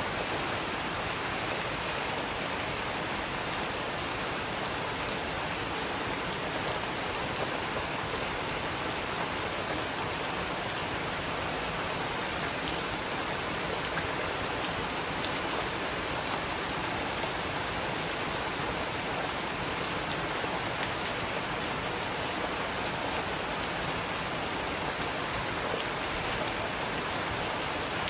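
Steady rain pattering as an even hiss, with a few sharp pops from a crackling wood fire scattered through it.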